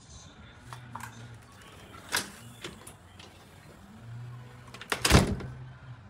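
Clicks and knocks: one sharp click about two seconds in, then a louder clatter of several knocks around five seconds in, over a low steady hum.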